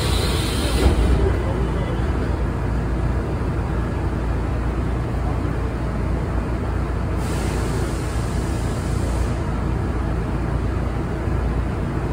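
Korail 351000-series electric train standing at a platform with its doors open, its onboard equipment giving a steady low hum. There is a hiss as the doors slide open at the start, and another hiss of air lasting about two seconds, about seven seconds in.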